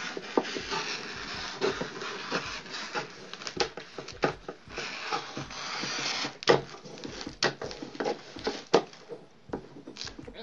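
Scissors cutting through a sheet of wrapping paper: the paper rustles and crinkles steadily, with sharp snips of the blades, the loudest coming about six and a half and nearly nine seconds in.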